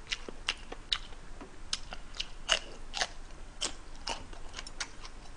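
A person chewing a mouthful of tteokbokki rice cakes and leftover fried chicken close to the microphone: wet, smacking mouth clicks at irregular spacing, roughly two a second.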